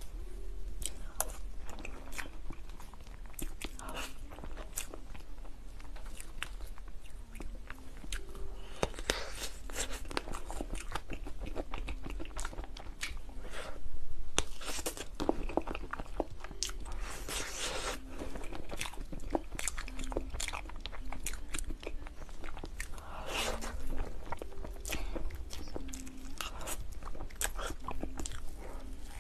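Close-miked eating of a soft mousse cake: wet chewing, lip smacks and many short clicky bites throughout. A louder bite comes about fourteen seconds in.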